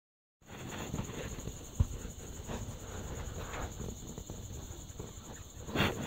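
Flock of budgerigars chirping and chattering in an aviary, a steady high twittering with short sharp chirps. A sharp thump a little under two seconds in is the loudest single sound.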